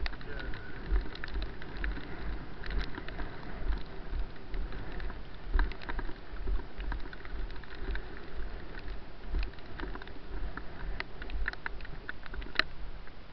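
Rain and wind noise on a body-worn camera's microphone while walking over wet grass: rustling, irregular low thumps, and scattered sharp clicks.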